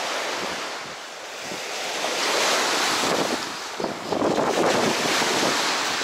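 Small waves washing onto a sandy, pebbly shore, swelling about two seconds in and again about four seconds in, with wind buffeting the microphone.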